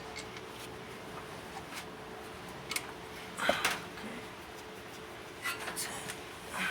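Scattered metal clicks and clanks of a disc brake caliper and pads being handled and fitted back on, the loudest about three and a half seconds in. A faint steady hum runs underneath.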